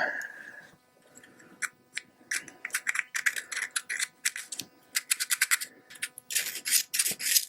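Screwdriver tip scraping gummed varnish and old-fuel deposits out of a small-engine carburetor float bowl: quick runs of short, sharp scratches, with longer, denser scraping strokes near the end.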